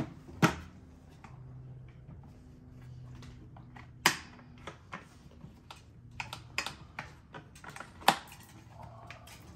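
Hard plastic clicks and snaps from a vintage Johnny Seven One Man Army toy gun as its parts are worked by hand: three sharp snaps about four seconds apart, with a run of lighter clicks between the second and third.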